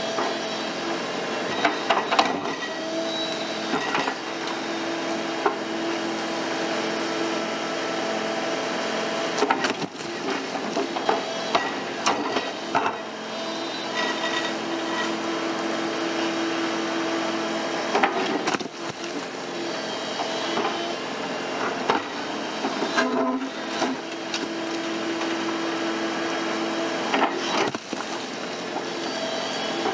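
Tracked excavator working, its engine and hydraulics running steadily with a tone that rises and falls away in stretches of a few seconds as the arm moves. The steel bucket knocks against and breaks up concrete slabs of the dam, giving scattered sharp cracks and thuds.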